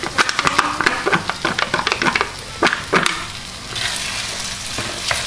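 Diced pancetta tipped from a plastic tray into a pan of hot tomato and aubergine sauce, with a quick run of clicks and knocks from the tray and spoon against the pan, then a steady sizzle as the pancetta is stirred in from a little before four seconds.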